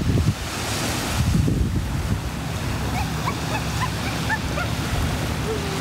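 Surf washing onto a sandy beach, with wind buffeting the microphone in a low rumble. A few faint short chirps come through about halfway in.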